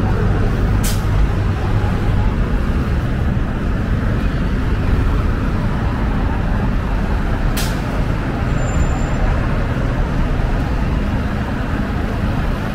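Busy city street traffic: a steady low rumble of engines and tyres, with two short high hisses, one about a second in and one near the eighth second.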